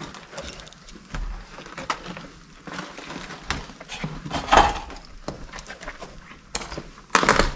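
Footsteps crunching over rubble and flaking plaster, with scattered small clicks and knocks of debris shifting underfoot; a louder crunch comes about halfway and the loudest near the end.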